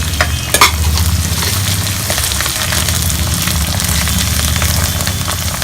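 Garlic, onion, green chillies and curry leaves frying in hot oil in a kadhai, a steady sizzle over a high flame. A couple of sharp clicks come about half a second in.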